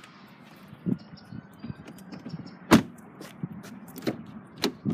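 Scattered clicks and light knocks of handling inside a car cabin, the loudest a single sharp click a little past halfway.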